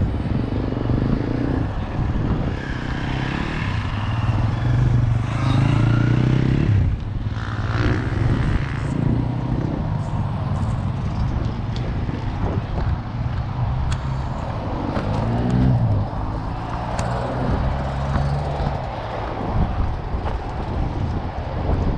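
Motocross bike engine running at low revs as the bike is ridden slowly, with one rev rising and falling about fifteen seconds in. Wind rushes on the helmet microphone.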